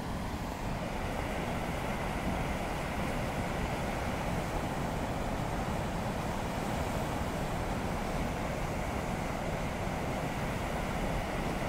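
Waterfall rushing steadily, an even unbroken wash of falling water.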